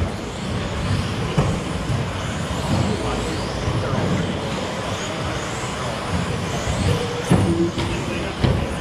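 Several 1/10-scale electric stadium trucks with 13.5-turn brushless motors racing on a carpet track: motors whining up and down in pitch as they accelerate and brake, over a steady rush of tyres on carpet. A few sharp knocks come near the end as trucks land jumps or hit the track.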